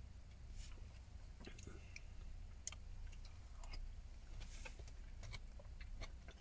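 Faint scattered clinks and scrapes of a metal spoon stirring stew in a small steel pot, with a spoonful tasted and chewed partway through, over a low steady hum.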